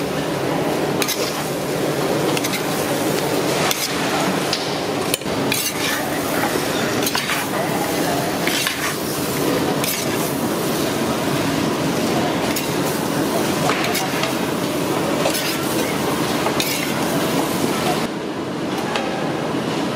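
Metal spatula stirring and scraping fried fish pieces in a large iron kadai, with repeated clinks and scrapes of metal on the pan over a steady sizzle.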